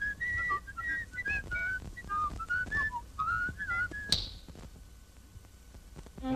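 A cartoon soundtrack whistle carrying a jaunty, hopping tune of short notes for about four seconds. It ends in a single sharp hit with a brief high ring, followed by a quieter stretch.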